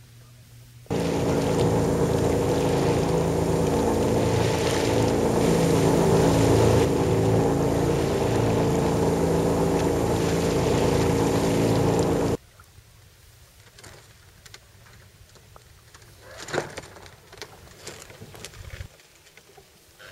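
A boat engine runs steadily at constant revs. It starts abruptly about a second in and cuts off just as abruptly some eleven seconds later, leaving only faint scattered sounds.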